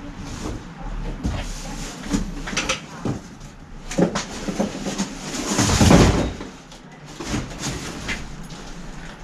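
Large cardboard bicycle shipping box being lifted, tipped and laid down, with cardboard scraping and rustling and a string of knocks as loose parts shift and drop out of its bottom. The loudest part is a long scraping rush about six seconds in.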